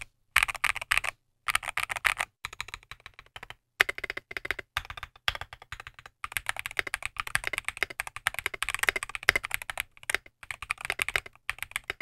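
Typing on the Akko YU01, a 68-key mechanical keyboard with a resin case and transparent PC plastic keycaps: quick runs of key clacks broken by brief pauses.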